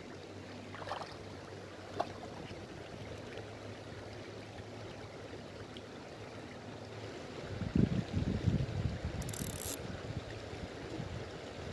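Shallow stream water flowing steadily over stones. From about three quarters of the way in, wind buffets the microphone in low, uneven gusts, with a brief high hiss near the end.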